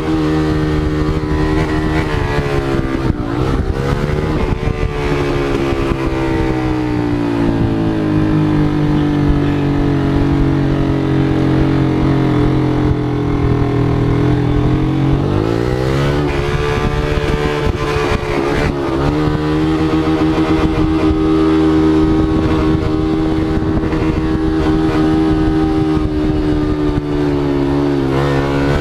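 Motorcycle engine running loud at high revs. Its pitch drifts slowly up and down, and the revs dip sharply and climb back a few times.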